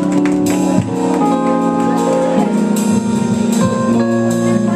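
Live gospel band music: held keyboard chords with sharp drum and cymbal hits at intervals.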